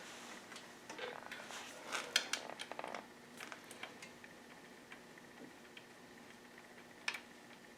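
Faint, scattered clicks and light knocks of hand tools and small metal parts being handled, with one sharper click about seven seconds in.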